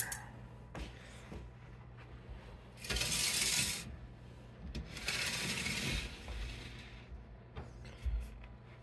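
Sliding glass doors of a reptile enclosure scraping along their track as they are pushed open, in two strokes of about a second each, about two seconds apart.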